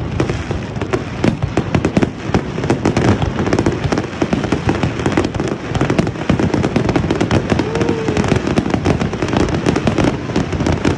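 Fireworks display: a dense, continuous barrage of bangs and crackling, many shells going off every second without a break.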